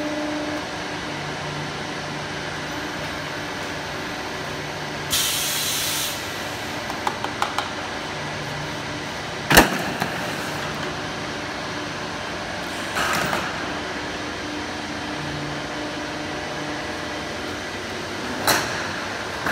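Pipe-welding machine: a steady machine hum, broken by a short burst of air hiss about five seconds in, a few light clicks, a sharp knock about halfway through, and two more short clatters later on.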